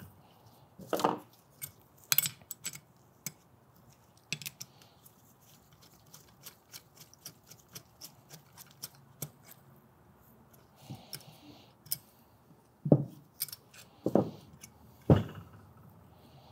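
Small metal clicks and knocks of hand tools and parts on a Graco Fusion PC spray foam gun as its trigger is removed from the handle. The clicks are scattered, with a few louder knocks about a second in, around two seconds in, and three close together near the end.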